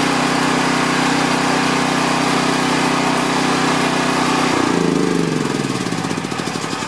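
Champion 9000-watt portable generator's engine running steadily, then shut off by its remote key fob about two-thirds of the way through and coasting down, its pitch falling as it slows.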